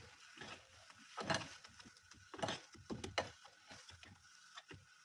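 Irregular knocks and clatters of kitchen utensils, a few of them sharper, over a faint steady hiss.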